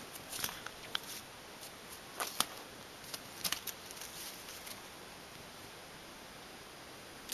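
Short soft scuffs and clicks of a kitten scrabbling and pouncing on a bedsheet while batting at a feather toy on a string. They are scattered through the first few seconds, then give way to a faint steady hiss.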